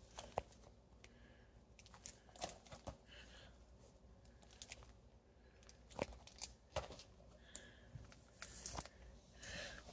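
Comic books being handled and laid out: faint, scattered rustles, crinkles and light taps.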